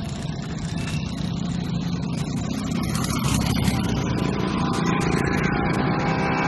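Road-traffic noise: motorcycle and car engines with a steady low rumble. It grows a little louder toward the end, where a steady engine note comes in about five seconds in.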